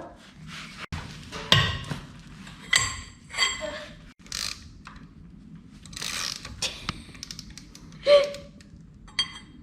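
Metal clinks and clanks of a socket wrench with a steel pipe extension being worked on a truck wheel's lug nuts as they are loosened: about half a dozen separate knocks, each with a brief metallic ring.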